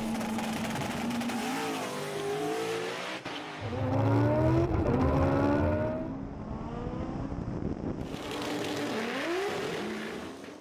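Race car engines accelerating hard on a drag strip, the engine note climbing in pitch several times and falling back in between, loudest about four to five seconds in, then fading out at the end.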